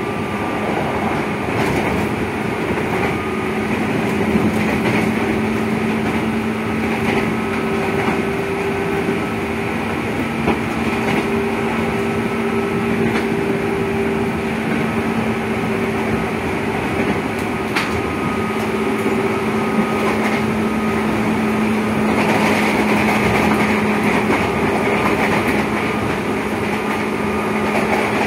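Running sound inside a 205 series electric train's motor car: traction motors humming at a steady pitch over continuous wheel and rail noise, with a few sharp clicks.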